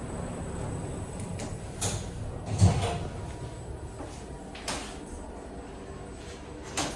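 Schindler 5500 lift: a steady low hum with several sharp clunks, the loudest a low thump about two and a half seconds in.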